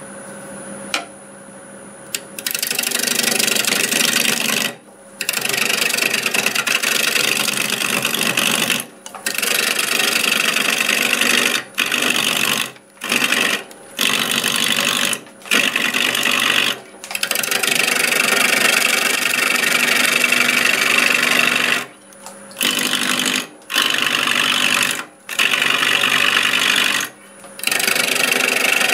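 A 5/8-inch bowl gouge cutting a spinning mimosa bowl blank on a wood lathe turning at about 750 RPM. The lathe runs quietly for the first two seconds. Then comes a loud, continuous shearing of wood, broken about ten times by short gaps where the tool comes off the wood.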